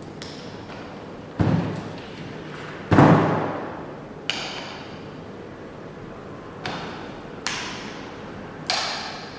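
Metal knocks and clunks from handling a magnetic drill's parts: two heavy thuds, the second the loudest, then four lighter knocks that ring briefly. The drill motor is not running.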